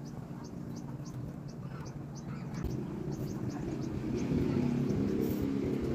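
An engine's low drone growing steadily louder, rising most from about halfway in. Over it runs a short, high chirp repeated about three times a second.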